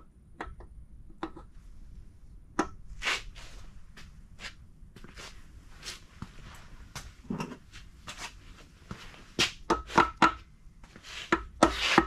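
Scattered metal clicks and knocks as an oil pump is set onto an aluminium BMW N54 engine block and its bolts are fitted, with the clicks coming thicker in the second half.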